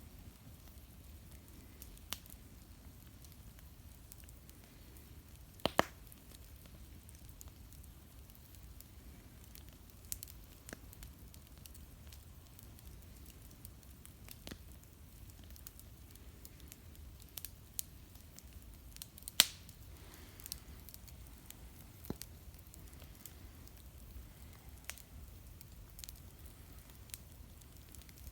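Fire crackling, with scattered sharp pops and cracks every second or few; the two loudest come about six seconds in and about nineteen seconds in.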